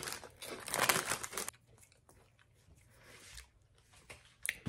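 Lay's chip bag crinkling as it is handled, for about the first second and a half, with a single sharp click near the end.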